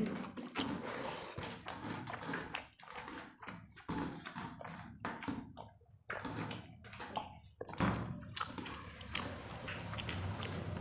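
Eating by hand: fingers mashing and mixing rice with chicken curry on steel plates, wet squishing with many small irregular clicks, mixed with chewing.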